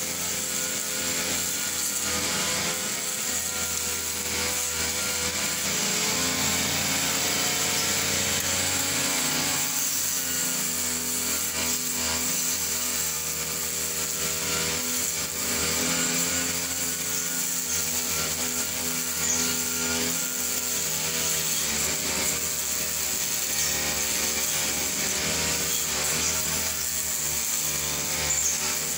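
Backpack brush cutter's small two-stroke engine, run on petrol mixed with oil, running steadily while its spinning head cuts long grass. The engine note wavers slightly up and down as the cut goes on.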